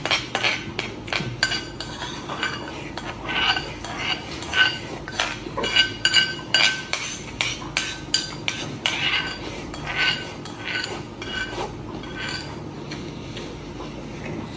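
Metal spoon clinking and scraping against a ceramic rice bowl, many quick ringing clinks, as the bowl is scooped clean of rice and braised-beef sauce.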